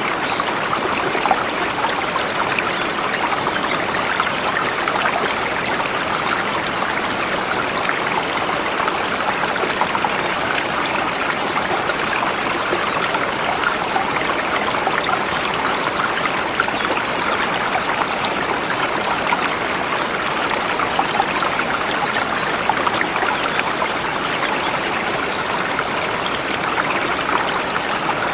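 Forest river flowing over rocks: a steady, unbroken rush of water.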